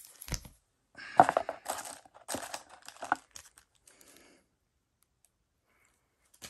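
Plastic and foil packaging of Pokémon trading cards crinkling and tearing in the hands in several bursts, with a dull thump near the start. It stops about four and a half seconds in.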